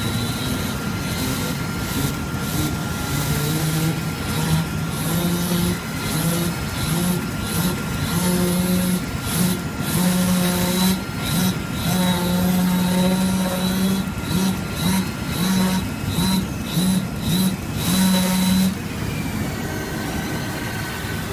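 CNC vibration-knife cutting machine cutting corrugated cardboard: a steady mechanical hum with a low buzz that starts and stops in many short spurts, the spurts ending a few seconds before the end.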